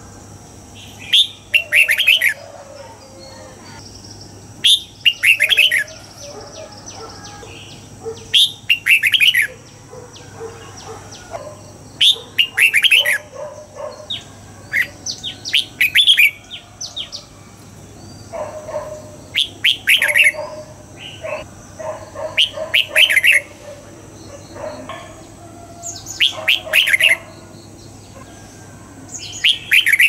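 Red-whiskered bulbul singing: about nine short, loud phrases of quick rising and falling whistled notes, one every three to four seconds, over a faint steady high-pitched whine.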